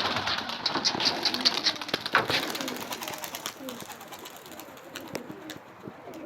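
Domestic pigeons cooing, with a busy rustling and clicking in the first couple of seconds that dies down towards the end.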